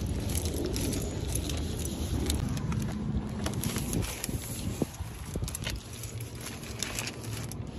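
Low, steady rumble as heard inside a moving car, with scattered light clicks and knocks.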